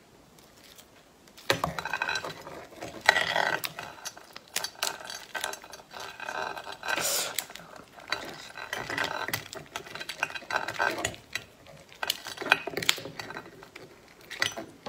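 Prawn shell being cracked and peeled apart by hand: a run of sharp clicks and crackling that starts about a second and a half in.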